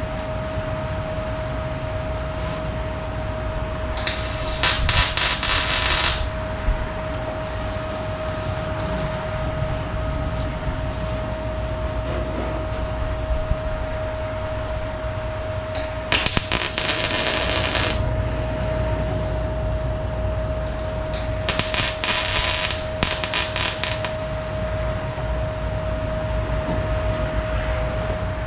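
Welder tack-welding an 18-gauge sheet-metal patch into a car's package tray: three short bursts of crackling, the first about four seconds in and the other two later. A steady hum runs underneath.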